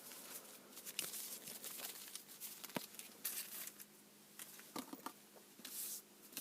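Trading cards and their packaging being handled: faint rustling and crinkling, with scattered small clicks and a few short rustles.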